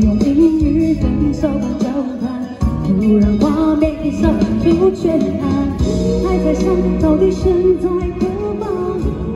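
Live concert performance: a female lead vocal over a full pop band, with steady bass and drums.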